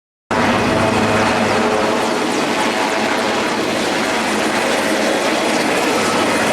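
Helicopter flying close by: loud, steady rotor and engine noise that cuts in abruptly just after the start.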